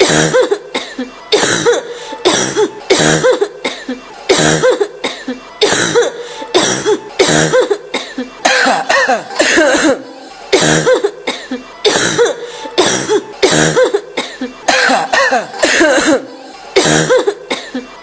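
A woman coughing over and over, in fits of several coughs in quick succession with short pauses between the fits.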